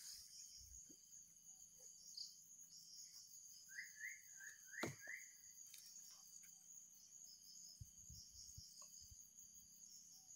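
Faint, steady insect chorus, a high pulsing trill. About four seconds in, a bird gives a quick run of five short chirping notes, and a sharp click follows just after.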